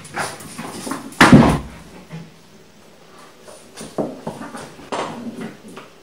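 A heavy thud about a second in, then lighter knocks and scuffles around four and five seconds in, as a French bulldog wrestles and shakes a plush toy on a tile floor against wooden cupboard doors.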